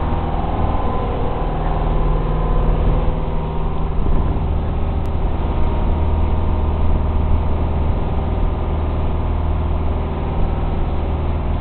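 Commercial fishing boat's engine running steadily, a constant deep hum.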